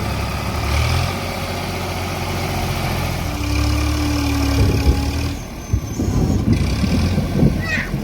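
Heavy diesel engine of a tractor or backhoe running steadily with a low drone. A steady higher tone sounds over it for about two seconds midway, and a few short knocks follow.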